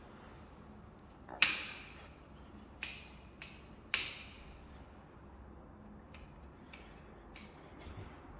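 Sharp metallic clicks from a vintage Motobecane road bike's brake levers and caliper brakes being squeezed and let go during a function check. Four clicks come in the first few seconds, the first and the last loud with a brief ring in the stairwell echo, then lighter ticks follow near the end.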